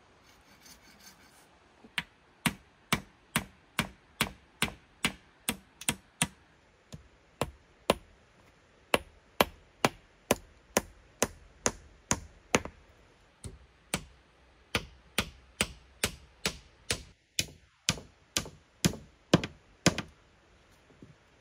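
A hand tool striking a wooden pole in steady blows, about two a second, with a short break a little past halfway.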